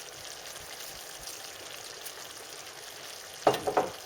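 Minced pork and tomato meat sauce sizzling steadily in the pan, with a short louder sound near the end.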